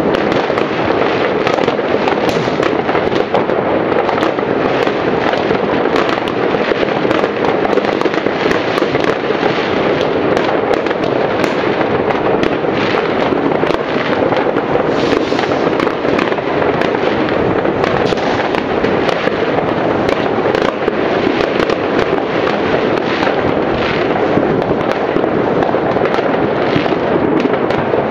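New Year's Eve fireworks and firecrackers going off across a wide area at once: countless overlapping bangs and pops merging into a steady, dense crackle.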